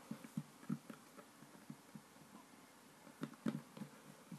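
Soft, irregular low thuds of hands patting and pressing a slab of play dough flat on a wooden tabletop, a few a second, with a slightly louder group of pats about three and a half seconds in.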